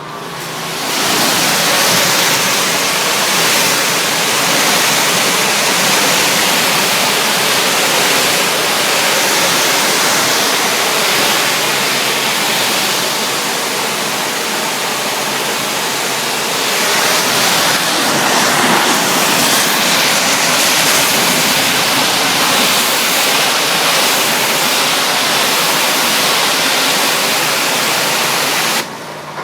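Pressure washer's high-pressure water jet spraying steadily, a loud, even hiss. It cuts off suddenly near the end, leaving a quieter steady hum.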